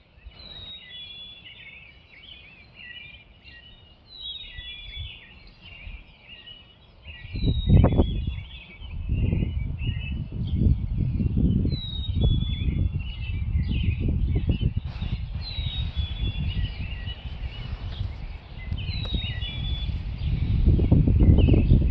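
Robin singing, one warbled phrase about every four seconds, each opening with a high falling note. From about seven seconds in, a loud, uneven low rumble of noise lies under the song.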